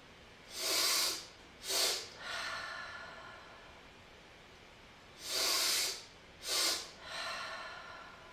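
Two rounds of cyclic sighing (the physiological sigh). Each round is a double inhale through the nose, a longer sniff followed by a short top-up sniff, then a softer, longer exhale through the mouth that fades out. The sniffs are the loudest sounds.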